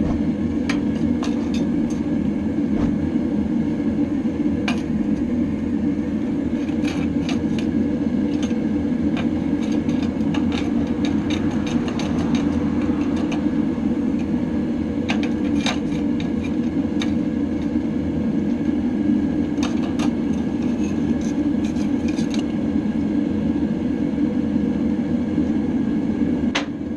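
Hot forged railroad spike crackling and popping in a bucket of quench oil, over a loud, steady machine drone.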